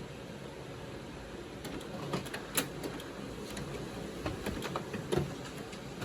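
HP Color LaserJet Pro MFP 4301fdw laser printer running a print job: a steady whir, with a series of sharp irregular clicks starting about two seconds in.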